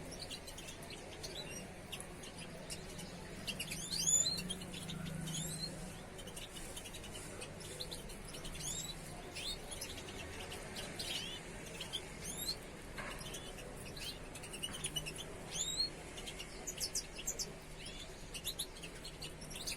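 Several small caged songbirds chirping and twittering in short, quick high calls scattered throughout, the loudest burst about four seconds in, over a faint steady low hum.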